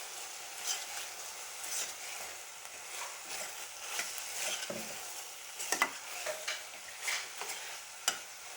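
Chicken pieces sizzling in oil in a kadai while a spatula stirs them, with irregular scrapes and clicks of the spatula against the pan, mixing in turmeric powder.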